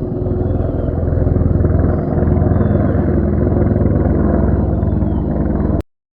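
Big-rig diesel truck engine running with a steady low rumble, cut off abruptly near the end.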